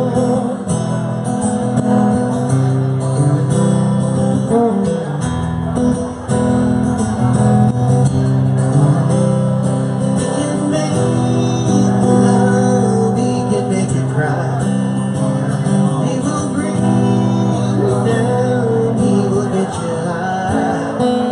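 Live band music: an instrumental break with guitar over a steady beat and no lead vocal.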